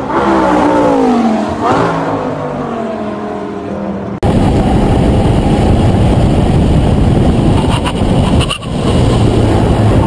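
A car's engine note falling in pitch as it drives by. About four seconds in it cuts to a loud, steady rush of wind, tyre and engine noise from a car at speed, heard from low beside a wheel, with a brief dip near the end.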